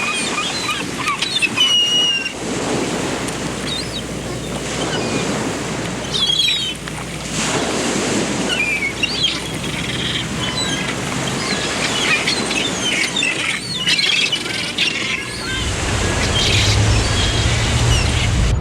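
Several small birds chirping and whistling in quick, overlapping calls over a rushing background noise that swells every few seconds. A low rumble comes in about three seconds before the end.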